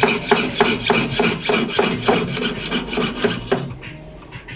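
Jeweller's piercing saw cutting a silver sheet pendant, the fine blade rasping back and forth in quick, even strokes, about four a second. The strokes stop briefly near the end.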